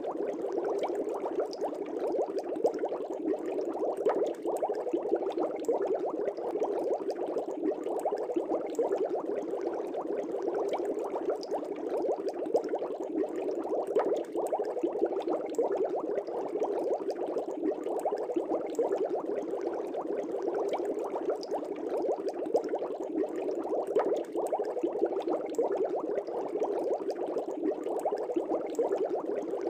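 Aquarium air bubbles rising and bubbling at the water surface without pause: a dense, steady burble of many small pops and gurgles.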